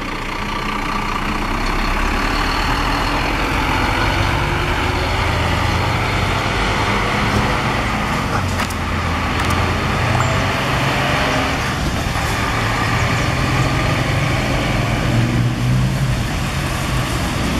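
An intercity coach's diesel engine pulling away and driving past, its engine note rising and falling as it goes, over general road noise.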